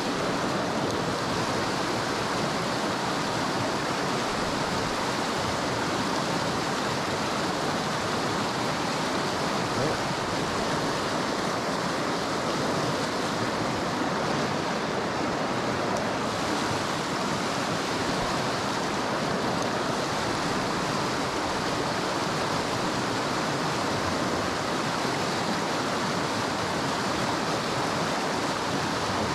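Fast-flowing creek rushing over rocks and rapids: a steady, even wash of white water with no breaks.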